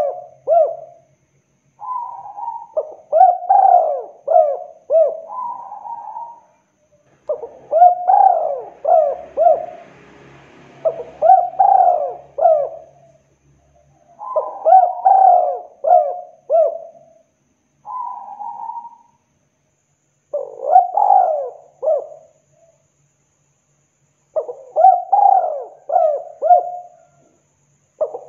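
Spotted dove cooing: about seven phrases, each a quick run of several short coos, repeated a few seconds apart.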